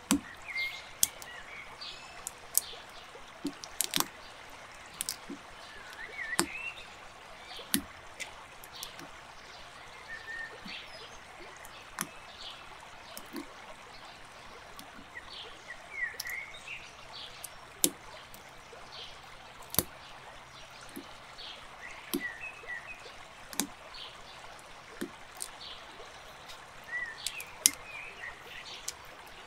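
Small plastic building bricks being handled and pressed together: irregular sharp clicks about once or twice a second over a steady faint hiss, with short high chirps here and there.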